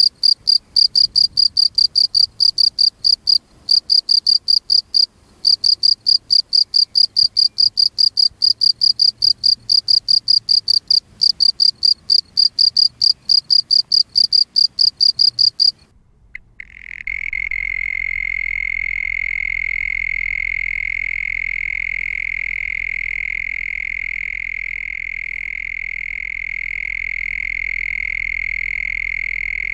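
Field crickets calling: rapid, evenly spaced high-pitched chirps for about sixteen seconds, with two brief pauses early on. After a moment's silence they give way to a steady, unbroken, lower-pitched trill that runs on.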